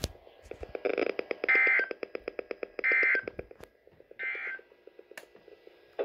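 Three short bursts of SAME digital data tones, the end-of-message code closing a NOAA Weather Radio flood warning broadcast, about a second and a half apart. They sound over a weather alert radio's rapid alarm beeping, about eight beeps a second.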